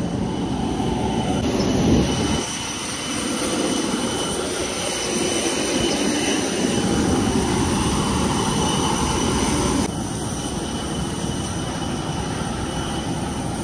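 Jet aircraft noise on an airport apron: a steady rush with several high, steady whining tones. The sound shifts abruptly about one and a half seconds in and again about ten seconds in.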